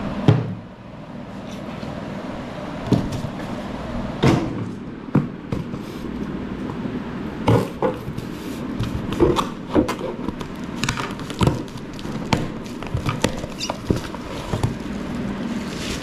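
Boxes and packaging being handled and opened by hand: scattered clicks, knocks and rustles of cardboard and plastic over steady background noise.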